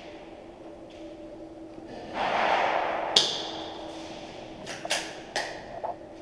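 Airsoft gunfire in a plywood-walled indoor arena: a sharp, ringing snap about three seconds in, then four lighter snaps in quick succession near the end. Just before the first snap, a second-long rush of noise close to the head-mounted microphone.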